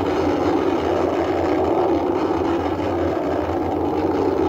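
Antares 120 rocket's two AJ26 first-stage engines during ascent: a steady, loud rocket-exhaust noise with no pauses.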